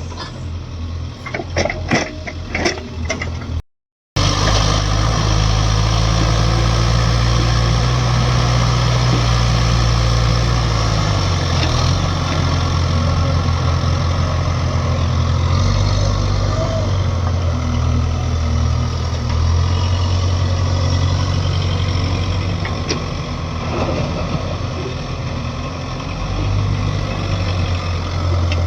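Heavy diesel engine running steadily, its engine speed dropping about eleven seconds in and shifting up and down again later. In the first few seconds, a string of sharp knocks and clatters, then a brief cut to silence.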